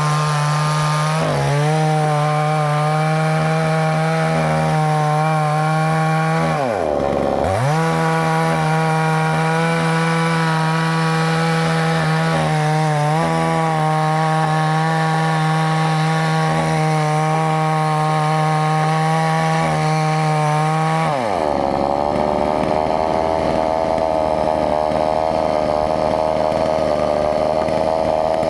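Two-stroke chainsaw running at high revs, cutting into a tree. Its pitch drops sharply and climbs back twice, about a quarter of the way in and again about three quarters of the way in, then it runs on a little lower and rougher.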